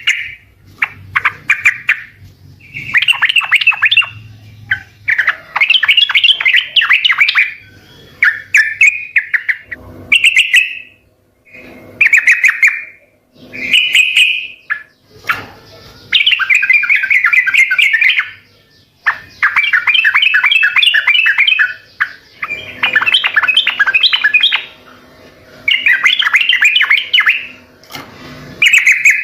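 Yellow-vented bulbul (trucukan) singing vigorously: a run of loud chattering song phrases, each a second or two long, with short pauses between.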